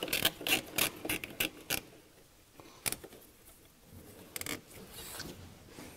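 Nylon zip tie being pulled tight, its ratchet clicking quickly for about two seconds, then a few scattered clicks and rustles as it is worked snug.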